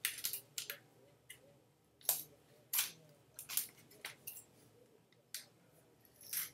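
Small craft scissors making short, separate snips, about ten irregularly spaced cuts, as a strip of green craft material is trimmed.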